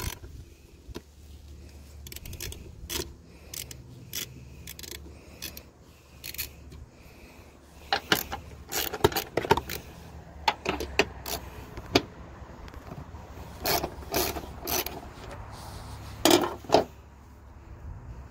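Socket ratchet and metal intake parts clicking and clinking in irregular bursts as the bolts and hose clamp around a mass airflow sensor are undone by hand, busiest around the middle and near the end, over a low steady hum.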